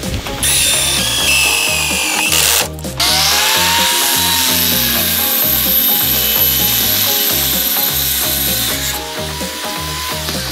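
A power drill boring into a thin steel tube. About three seconds in it gives way to an angle grinder with a cut-off disc cutting through a steel bar for about six seconds, a steady high whine, all over background music with a steady beat.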